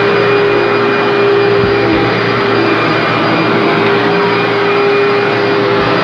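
Commercial upright vacuum cleaner running steadily while pushed over carpet, picking up dry soil: a constant motor tone over a loud rush of air.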